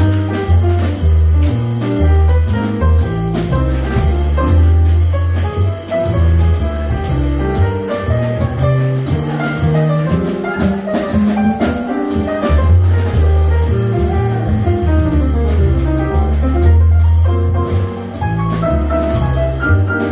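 Live Brazilian jazz played by a trio of grand piano, upright double bass and drum kit. The bass moves note to note underneath, piano lines run above it, and drums and cymbals keep time throughout.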